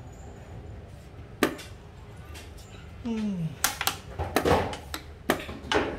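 Sharp clacks of xiangqi pieces on a wooden board as a piece is captured and set aside: one lone click about a second and a half in, then a run of clacks and knocks from about halfway to near the end.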